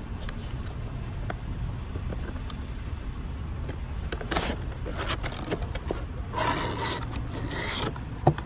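Cardboard flashlight packaging being slid apart and a plastic clamshell pulled out: several scraping, rustling bursts from about halfway through, the longest near the end, then a couple of sharp clicks, over a steady low rumble.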